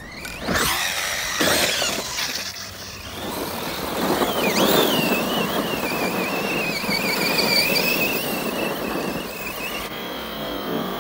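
ARRMA Kraton 6S BLX RC truck's brushless electric motor whining as it revs and accelerates, with its tyres tearing through loose dirt. The whine sweeps up and down in the first couple of seconds, then holds a wavering high pitch for several seconds.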